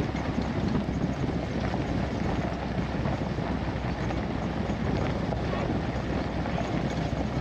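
1979 Chevy K10 pickup driving steadily along a gravel road: tyres crunching over gravel under the truck's engine noise, with wind buffeting the microphone.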